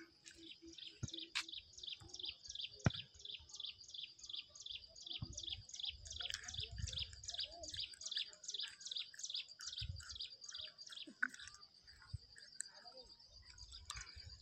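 High outdoor chirping, one short call repeated about three times a second, over a steady high-pitched drone; the chirps stop a little before the end. A couple of low rumbles come in the middle.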